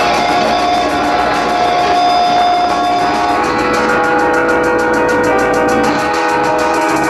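Rock band playing: electric guitars hold sustained notes over drums. About halfway through, a fast, even cymbal beat comes in.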